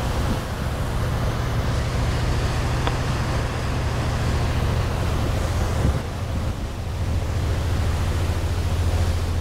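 Rush of the Coho ferry's wake churning along the hull, with wind buffeting the microphone as a steady low rumble that grows stronger near the end.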